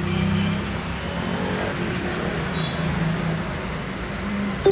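Steady background road-traffic noise with a low engine hum that wavers in pitch.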